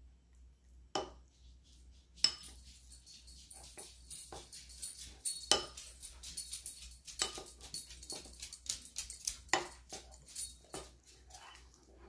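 Metal spoon stirring thick icing in a ceramic bowl: a single clink about a second in, then quick, repeated clinks and squeaky scrapes against the sides of the bowl, easing off near the end.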